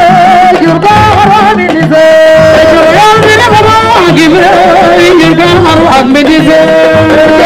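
A woman singing a cappella into a handheld microphone, loud and close, in long ornamented lines with wavering held notes.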